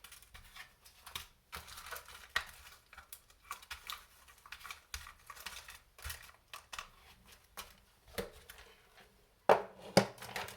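Small plastic parts bags crinkling and small hardware parts clicking as they are rummaged through, with two sharper knocks near the end.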